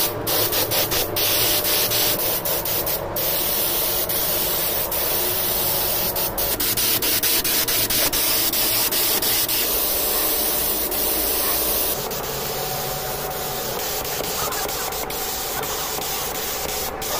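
Car paint-prep work on an engine bay: masking tape is pulled off the roll and rubbed down, with many sharp crackles. About two-thirds of the way through, a steadier hiss of spray-painting takes over as primer and paint go on.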